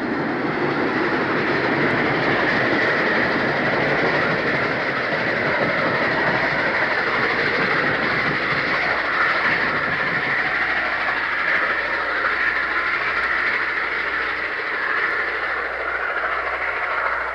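Freight train behind a B&O Mikado steam locomotive rolling past, its cars' wheels clattering steadily over the rails and the diamond crossing.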